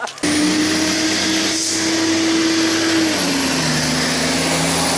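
A motor running steadily under a loud rushing noise, its note stepping down slightly about three seconds in, with a thin high whine throughout.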